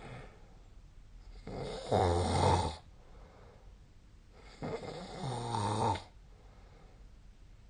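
A sleeping person snoring: two long, pitched snores about three seconds apart, each lasting over a second and growing louder before it stops.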